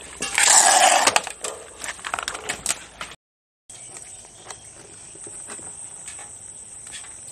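A pack of puppies eating kibble mixed with wet food, with scattered crunching and clicking from chewing and bowls knocking about. A loud burst of noise lasting about a second comes near the start, the sound drops out briefly midway, and the clicking is quieter after that.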